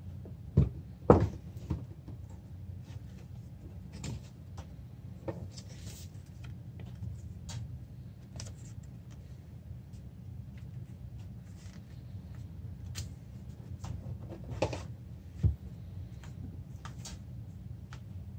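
Cardboard packaging and its contents being handled: a few sharp knocks and taps, the loudest two just after the start and two more near the end, among lighter clicks and rustles, over a low steady hum.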